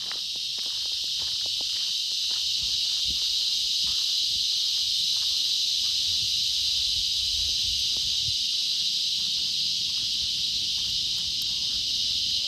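Hot oil sizzling in a cast-iron skillet with garlic, habanero pepper and rosemary in it: a steady hiss, growing a little louder in the first couple of seconds, with many small crackles and pops.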